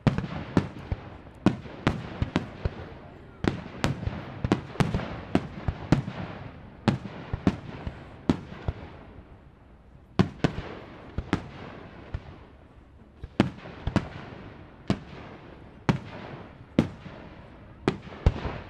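An aerial fireworks display bursting: a rapid, irregular series of sharp bangs, each trailing off in an echo. The bangs come thick and fast for the first six seconds or so, then at wider, uneven gaps of about a second.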